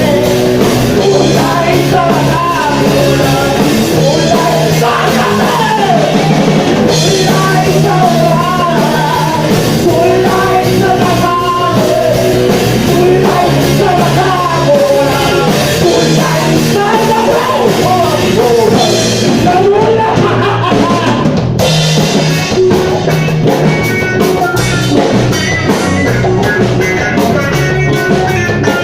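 A live rock band plays loud: drum kit, bass and guitar, with a wavering lead melody line over them. About three-quarters of the way through, the lead line drops out and the band carries on in a steady groove with regular drum hits.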